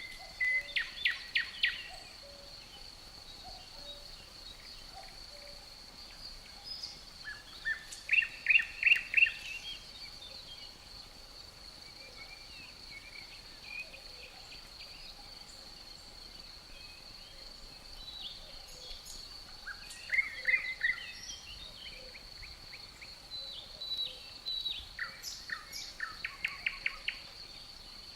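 Songbirds singing short phrases of quick repeated notes in four bouts, over a steady high-pitched drone of crickets.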